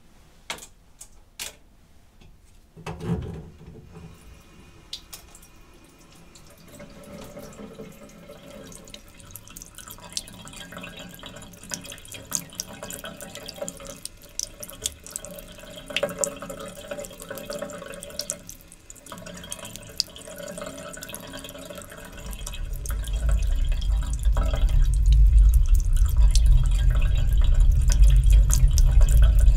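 Bathroom tap running into a sink, the stream splashing over a razor rinsed under it. A few sharp clicks and a knock come first; about twenty-two seconds in, a deep low rumble swells up and becomes the loudest sound.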